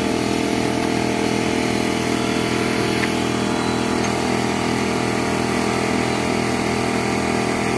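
An engine idling steadily, with an even low hum.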